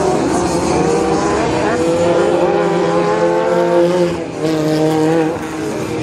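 Pro Lite short-course off-road race truck engines running on a dirt track, one engine note climbing as it accelerates, dropping out briefly about four seconds in, then pulling up again.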